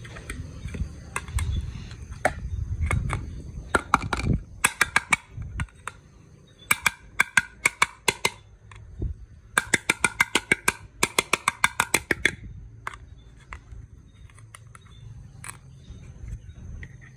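Plastic toy gun clicking in three rapid bursts, about eight clicks a second, after a few seconds of handling rumble.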